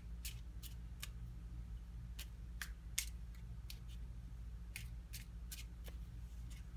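Tarot cards being handled, giving light, irregularly spaced clicks and snaps as a card is drawn, over a faint steady low hum.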